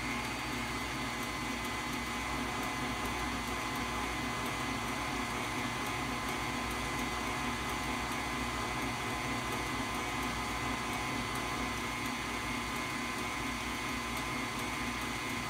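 Electric stand mixer running steadily with a steady whine, beating cake batter in its stainless steel bowl.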